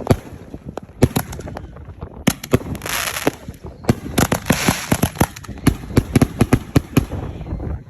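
Fireworks going off in a rapid barrage: many sharp bangs in quick, irregular succession, with stretches of hissing crackle around the third and fifth seconds.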